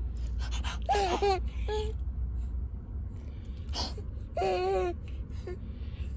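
A baby fussing: a few short, high-pitched wavering cries, about a second in, near two seconds and again after four seconds, over a steady low rumble.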